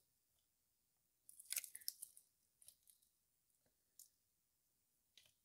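Faint clicks and light scraping of the N42 engine's Valvetronic bracket assembly being handled and fitted onto the cylinder-head bolts by gloved hands: a short cluster of clicks about a second and a half in, then a few single ticks.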